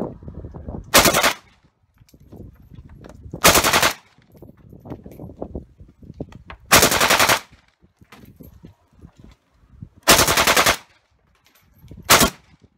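Kalashnikov-pattern rifle fired on full automatic in five short bursts of rapid shots, a few seconds apart, the last burst the shortest.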